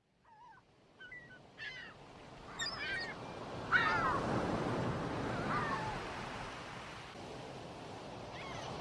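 Sea waves washing on a rocky shore, fading in and swelling, with gulls calling several times over it; the loudest call comes about four seconds in.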